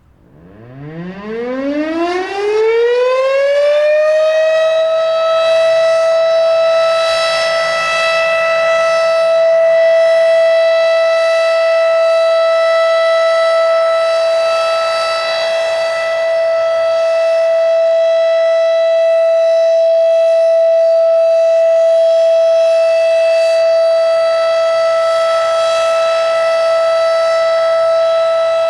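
Federal Signal Thunderbeam RSH-10 outdoor warning siren winding up, its pitch rising over about four seconds, then holding a steady, very loud alert tone.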